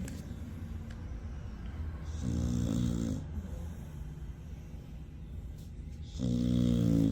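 Pit bull snoring: two long snores about four seconds apart, the first about two seconds in and the second near the end.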